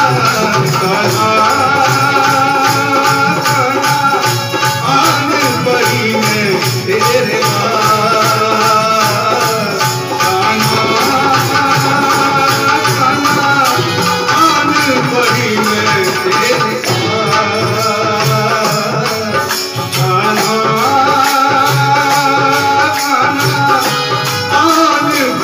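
Hindi devotional bhajan: a male voice singing a Krishna song over a naal barrel drum keeping a steady rhythm.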